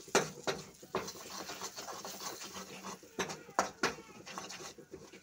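A spatula scraping and knocking against a kadai, in short strokes that come in two clusters, near the start and again after about three seconds. Between them, spiced paste sizzles as it fries in oil.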